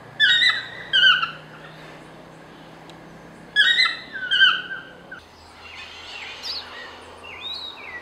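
Yellow-throated toucan calling: loud, yelping descending notes in three bursts during the first half. After that come fainter, thin high chirps of smaller birds.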